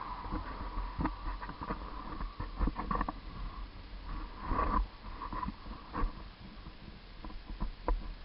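Irregular clicks and knocks from a bike-mounted action camera being handled and jolted as the bike moves over rough grass, over a low wind rumble on the microphone.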